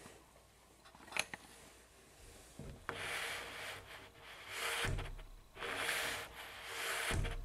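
Clear vinyl bottom sweep of a DreamLine Prism Plus glass shower door rubbing along the tile as the door swings, in a few rough strokes about a second long, with a sharp click about a second in.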